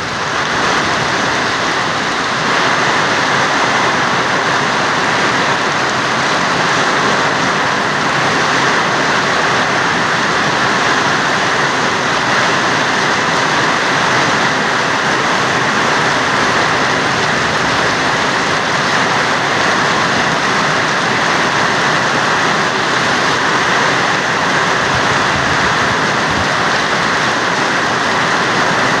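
Heavy typhoon rain falling steadily, an even, unbroken hiss.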